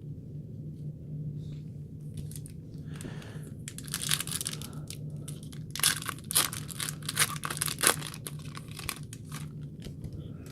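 Foil trading card pack wrapper being torn open and crinkled, crackling in a dense run of sharp rustles that is loudest in the middle and fades near the end.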